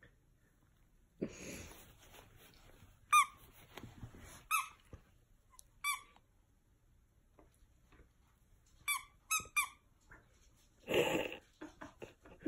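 A squeaky toy squeezed in short, high squeaks: three spaced a second or so apart, then three in quick succession. A short breathy noise comes near the end.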